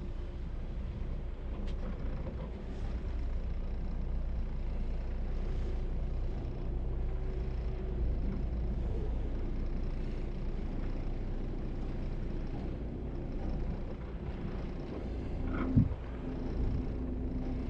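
Twin diesel engines of a Bayliner 4788 motor yacht running at low power, a steady low rumble as the boat turns under power. About three seconds before the end a brief louder sound rises over it, followed by a held tone.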